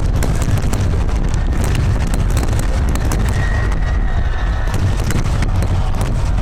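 Water-launched star-mine fireworks going off in a rapid continuous barrage: dense, irregular crackling and sharp reports over steady low booming.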